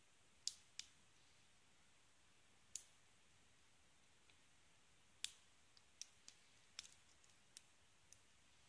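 Faint, sharp metallic clicks, about nine at irregular intervals, from a lock pick working the pin stacks of a five-pin brass padlock held under tension.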